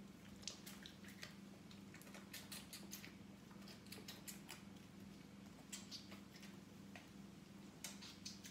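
Goat kid suckling from a feeding bottle: faint, irregular sucking clicks and smacks at the teat.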